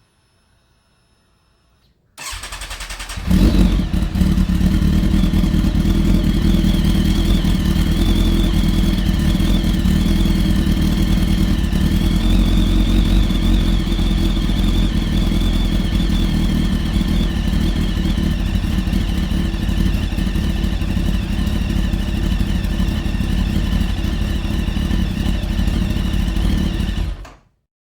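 Kawasaki Ninja motorcycle engine started: a starter whirs for about a second, then the engine catches and runs steadily, without revving up, until it cuts off abruptly near the end.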